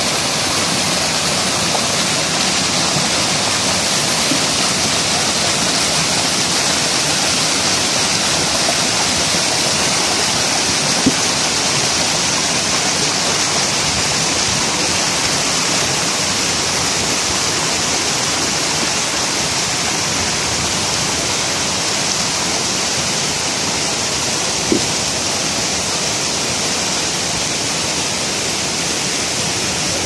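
Waterfall and cascading stream water falling over rocks: a loud, steady rush of water. Two brief clicks, about eleven seconds in and again near twenty-five seconds.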